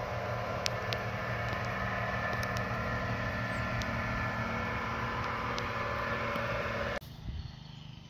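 Light rain shower falling, an even hiss with scattered sharp drip ticks, over a steady low engine-like hum. All of it cuts off abruptly about seven seconds in.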